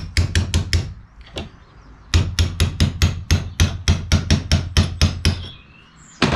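Small hammer tapping a steel drift rod to drive the cross pin out of a Mini A-Series differential housing held in a vice, metal on metal: a quick run of about five taps, a pause, then about fifteen steady taps at roughly five a second, and one last tap near the end.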